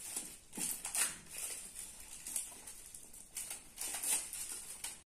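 Plastic shrink-wrap on a cardboard smartphone box crinkling and rustling in irregular bursts as it is worked and pulled by hand.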